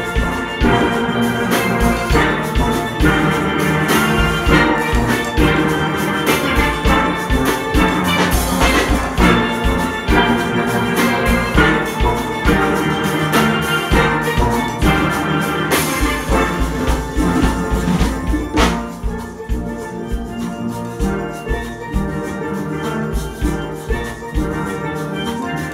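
A full steel orchestra playing live: many steelpans of different ranges sounding a dense arrangement together, over a steady, regular beat.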